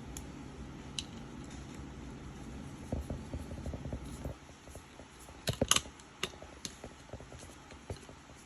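Small clicks and taps of a component and hand tools being handled on a circuit board while a triac is set in place for fitting, with a sharper cluster of clicks a little past halfway. A low steady hum runs underneath and drops away about four seconds in.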